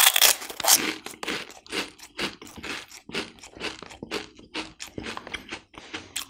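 Round Oishi spicy-squid snack balls being bitten and chewed. A run of crisp crunches, about three or four a second, loudest at the first bite.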